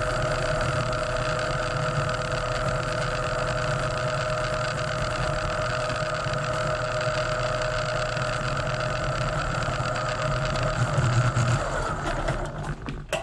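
Electric Eel Model C drain-cleaning machine running steadily, its motor spinning the snake cable fed into the drain. About twelve seconds in, the motor is switched off and winds down, followed by a few metallic knocks.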